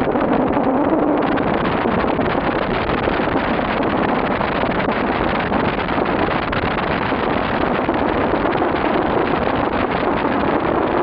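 Loud wind noise on the microphone of a camera in a moving car: a steady rushing, with the car's road noise underneath.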